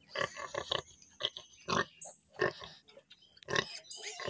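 A sow and her newborn piglets grunting at the teats while the piglets suckle: short grunts in quick, irregular succession, some with higher squeaky edges.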